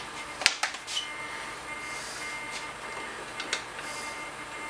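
Small electric fuel pump of a model jet turbine's fuel system running steadily while priming fuel through to the engine, a faint whir under several sharp clicks, the loudest about half a second in.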